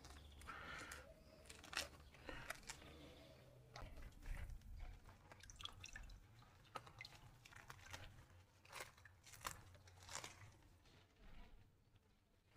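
Faint crackling and rustling of a staghorn fern's roots and potting mix being pulled and torn off the root ball by hand, in irregular small snaps.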